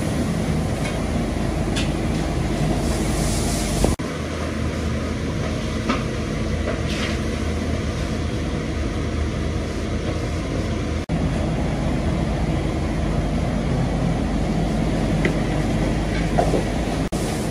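A steady mechanical rumble with a low hum, overlaid by a few light clicks and rustles. It drops out for an instant twice.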